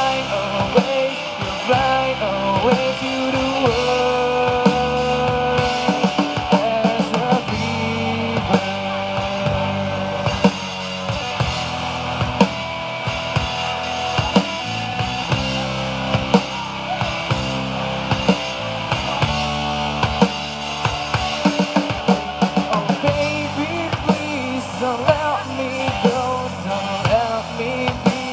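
Live rock band playing an instrumental passage, with a drum kit keeping a steady beat under a melodic lead line.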